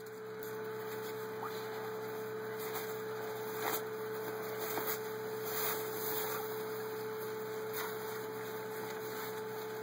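A steady electrical hum with background hiss, and a few faint rustles as a printed cloth banner is unrolled and handled.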